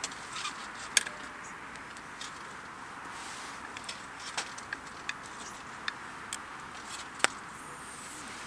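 Wood campfire crackling: irregular sharp pops, about a dozen, with two much louder ones about a second in and near the end, over a steady hiss.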